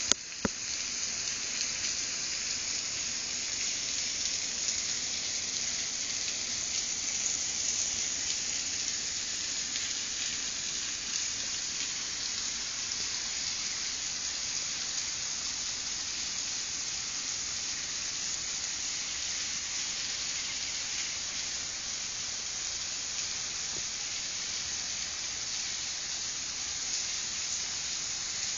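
Steady, unbroken rain-like hiss, strongest in the high range, with a single sharp click just after the start.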